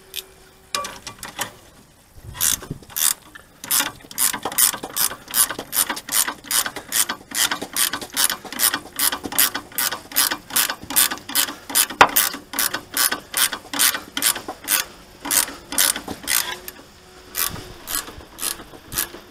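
Ratchet spanner clicking in a steady rhythm, about three clicks a second, as it tightens the top nut of a new front anti-roll bar drop link. The clicking starts about three seconds in and stops near the end.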